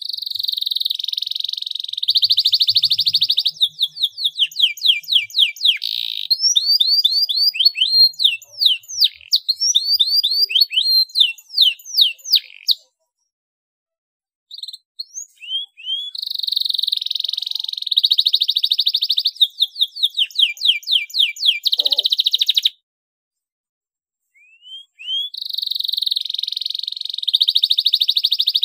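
Domestic canary singing in three long bouts, each rising into a fast rolling trill (the prized 'roll' and 'ngerek') followed by quick sweeping notes. Short silences fall between the bouts, about halfway through and again near the end.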